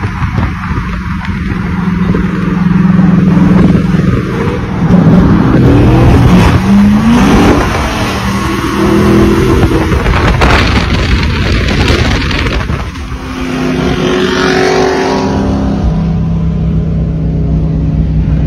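V8 muscle car engines under hard acceleration: the revs climb sharply more than once with loud exhaust, then settle into a steady drone near the end.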